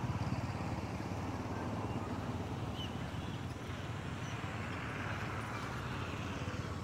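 A motor engine running nearby with a steady low pulsing rumble that eases slightly, with a few faint high chirps over it.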